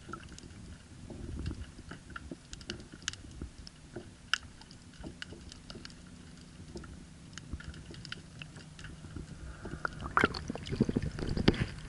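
Underwater sound picked up by an action camera in its housing: scattered sharp clicks and crackles over a faint low hum. The clicks grow denser and louder about ten seconds in, with rough knocking noise.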